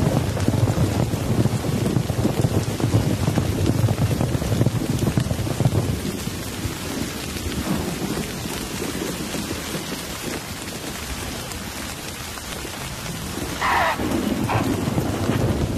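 Heavy rain pouring steadily in an African thunderstorm, with thunder rumbling low through the first six seconds or so before the rumble eases. Near the end a short high call sounds twice over the rain.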